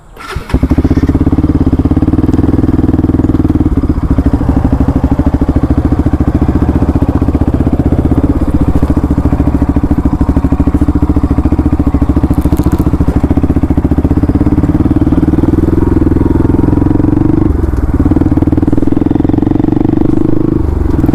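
Bajaj Pulsar NS200's single-cylinder engine running steadily at low speed as the motorcycle rides over a rough gravel track. It comes in suddenly right at the start, and the engine note dips briefly twice near the end.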